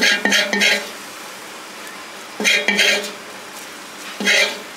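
Metal utensils scraping and clattering against a cooking pan, in three short bursts about two seconds apart, as tantuni meat is stirred and chopped.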